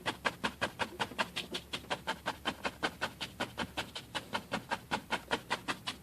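Paintbrush dabbing quickly on a stretched canvas, about six short, even strokes a second, while a small tree is painted in.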